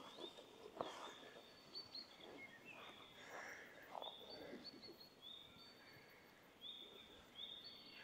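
New Zealand fantails calling: faint, thin, high 'tweet' notes repeated over and over at uneven intervals.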